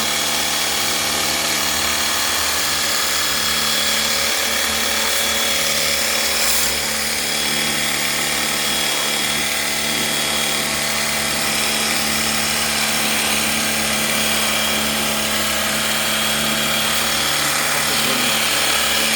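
Small electric washer pump motor running steadily, with the hiss of a water jet, as the dirty split air conditioner is washed out.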